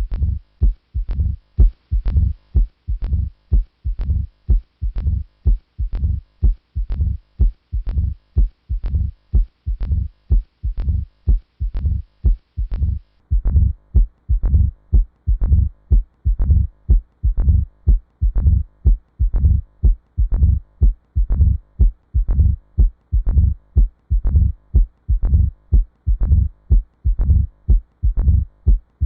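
Recorded heart sounds heard through a stethoscope: a steady, quick heartbeat, each beat a low thud. About 13 seconds in, the recording turns duller, with less high sound.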